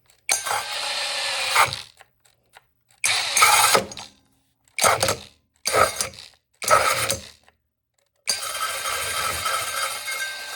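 Mellif 12-volt cordless drill fitted with a 5-inch hole saw, its motor whining in six short trigger bursts, the last one the longest.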